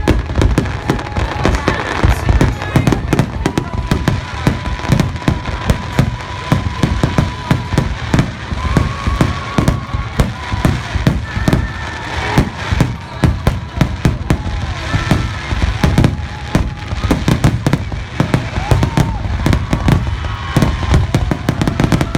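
Fireworks display, with a dense, unbroken string of bangs and crackles going off in quick succession.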